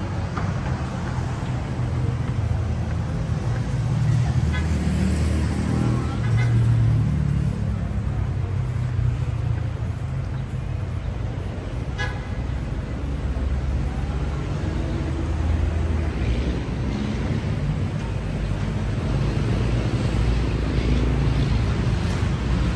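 City street traffic: vehicle engines running and passing close by, with a horn tooting.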